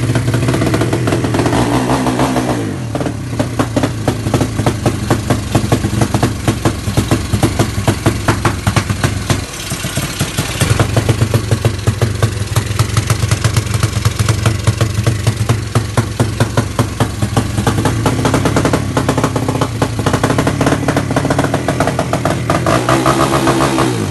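Yamaha Mio scooter's single-cylinder engine, built up to 200cc, running with a choppy, pulsing exhaust beat. It drops to a lower engine speed about three seconds in, picks up again near ten seconds, and rises near the end.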